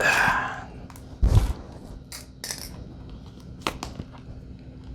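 Packaging being handled and opened: a dull thump about a second in, then a few light clicks and rustles.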